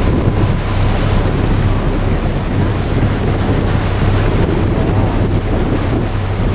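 Wind buffeting the microphone on a moving boat, with a steady low drone and the rush of water beneath it.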